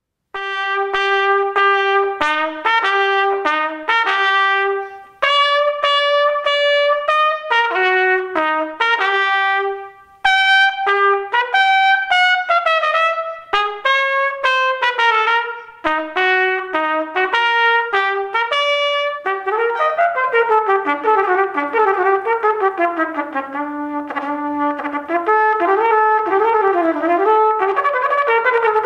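Solo trumpet played unaccompanied: short phrases of separate held notes with brief pauses, then, from about two-thirds of the way through, quicker runs of notes climbing and falling.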